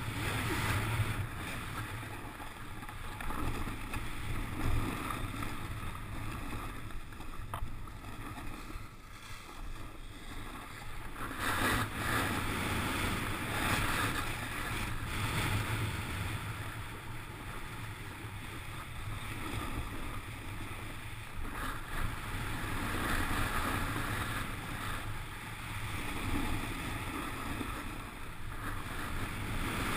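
A snowboard sliding down a groomed slope, its base and edges hissing and scraping over packed snow in swells that rise and fade as it turns, with wind on the microphone.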